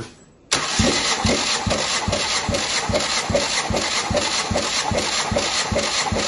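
Starter motor cranking a Ford AODA 2.0-litre inline-four, off the car, during a cold compression test. It kicks in about half a second in and runs with an even pulse a little over two beats a second as the tested cylinder compresses, which reads a healthy 14 kg/cm².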